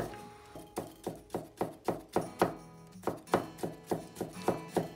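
Kitchen knife chopping a cucumber into thin strips on a wooden cutting board: sharp, even knocks about four a second, over soft background music.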